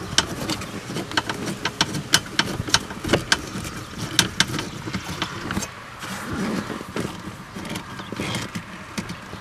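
Hand screwdriver driving 8mm screws into a plastic heater-box cover, making a quick irregular run of sharp clicks for about the first five seconds, then softer handling and rubbing of plastic.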